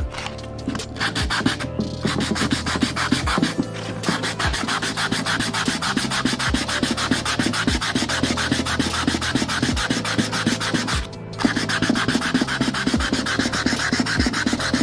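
Sandpaper rubbed in quick back-and-forth strokes over a metal sword blade, sanding away a laser-engraved name. The scrubbing breaks off briefly about eleven seconds in, then resumes. Background music with a steady beat runs underneath.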